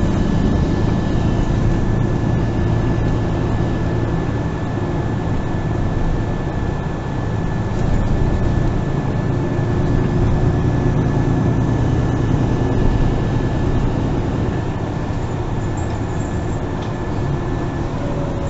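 MAN Lion's City GL (NG 363) articulated diesel city bus under way, heard from inside the passenger cabin: a steady engine and drive noise with a thin high whine running through it.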